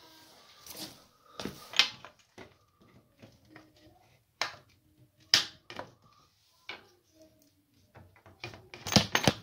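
Scattered clicks, taps and light knocks of hands working at a wooden cot frame and its metal screw fixing. Near the end comes a quick run of louder knocks.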